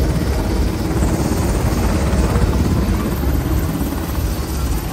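Helicopter rotor chopping steadily, a fast low beat under a steady rush of engine noise.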